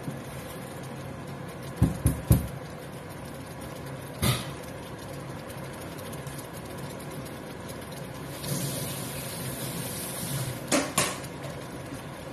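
A few sharp knocks of a spatula and utensils against a frying pan over a steady low kitchen hum. There are three in quick succession about two seconds in and one more about four seconds in. Near the end a rustling stretch leads into two more knocks.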